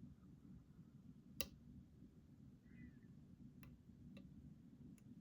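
Faint clicks of a hook pick working the pin stack of a challenge lock held under a tensioner: one sharper click about a second and a half in, then a few softer ticks, over a low steady hum.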